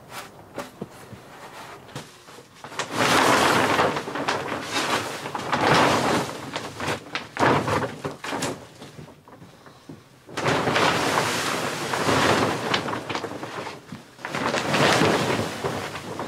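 Large clear plastic sheet being gathered up and dragged over the floor, crinkling and rustling loudly in two long stretches, starting about three seconds in and again about ten seconds in, with a few small knocks before the first.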